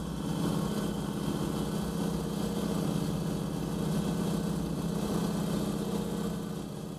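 Ride-on lawn mower's small petrol engine running steadily with an even firing pulse while it tows a light aircraft by its nose wheel.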